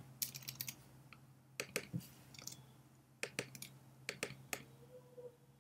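Irregular, faint clicks and taps of a computer keyboard and mouse, a dozen or so spread unevenly, over a low steady hum. They come as drawn lines are being deleted from a trading chart on screen.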